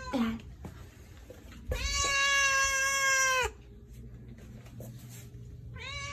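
Domestic cat meowing: the tail of a short meow at the start, then one long, steady, drawn-out meow of nearly two seconds that drops in pitch as it ends, and another meow starting near the end.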